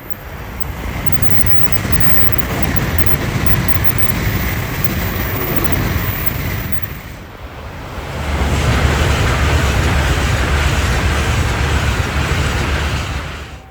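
Train running: a loud, steady rumble and rush of noise, in two stretches split by a brief dip about seven seconds in, cutting off abruptly at the end.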